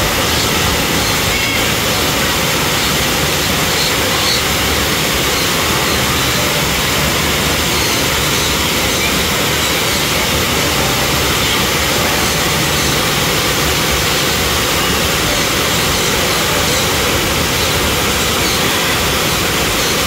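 Loud, steady rushing noise with no rhythm or pitch, holding level throughout.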